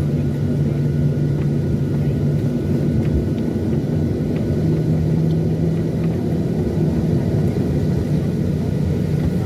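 Steady low rumble and hum inside the cabin of a Boeing 737-800, its CFM56-7B engines running at low power on the ground before take-off.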